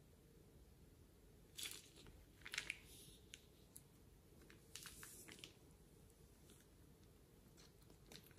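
Faint crinkling of a plastic piping bag being squeezed and handled, a few short crinkles about one and a half, two and a half and five seconds in, over near silence.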